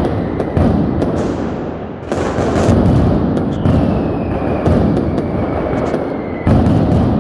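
Fireworks barrage: shells bursting one after another with crackling in between. A long whistle falls steadily in pitch for about three seconds and is cut off by a loud bang near the end.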